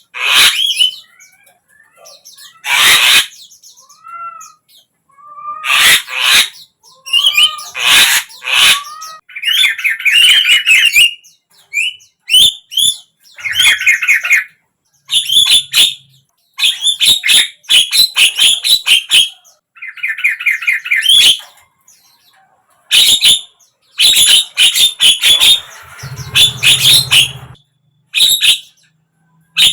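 Javan myna (jalak kebo) calling: a run of loud, harsh screeches and buzzy rattling chatters with a few short whistled notes, in separate bursts with short gaps between them.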